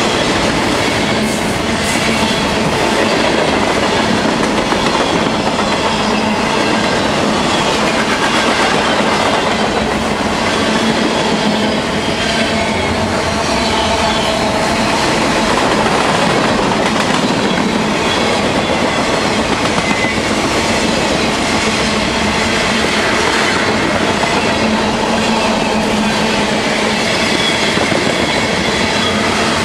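Freight train cars (hoppers, boxcars, an autorack and tank cars) rolling steadily past: the continuous rumble and clatter of steel wheels running on the rails.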